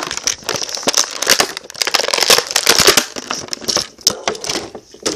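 Toy packaging being torn and crinkled open by hand: dense, irregular crinkling and crackling that thins out near the end.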